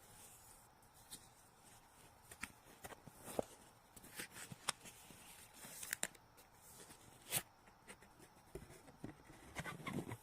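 Packaging handled during an unboxing: scattered sharp clicks, taps and short rustles, with two louder clicks a few seconds apart and a quick run of rustling near the end.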